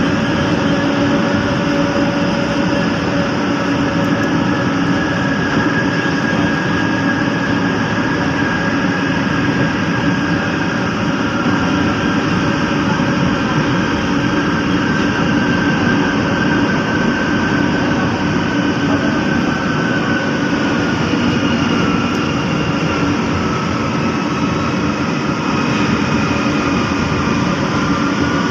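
Running noise heard from inside a moving MRT-3 light-rail car: a steady rumble of wheels and motors, with a faint whine that drifts down in pitch over the last several seconds.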